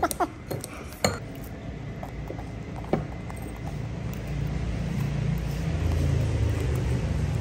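Metal scissors and a spoon clinking against a small ceramic bowl as noodles are cut and scooped, a few sharp clinks in the first three seconds. Then a vehicle engine running, growing louder through the second half.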